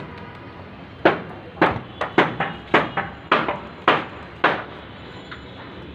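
A series of about eight sharp impacts, roughly two a second, stopping about four and a half seconds in.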